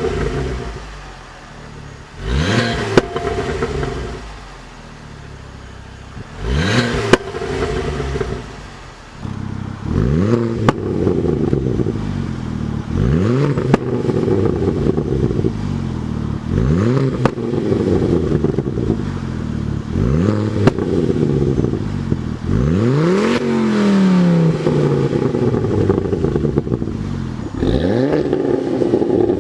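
Ford Focus ST MK2's turbocharged 2.5-litre five-cylinder engine revved over and over through its exhaust, each rev rising quickly and falling back, about one every three seconds after the first few. A few sharp pops and crackles come as the revs drop.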